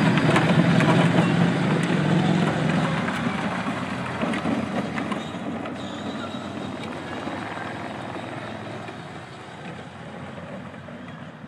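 Modified Tonka dump-truck Power Wheels ride-on toy driving off over gravel and grass: its electric drive motors and gearboxes whir steadily while the rubber-tracked rear tyres roll over the ground. The sound is loudest at first and fades steadily as the truck moves away.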